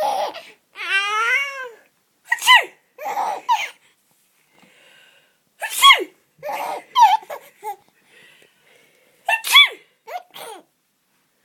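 An adult fakes sneezes about three times, each a sharp, hissy "achoo". A 12-week-old baby laughs and giggles between them, including a long wavering trill of a giggle about a second in.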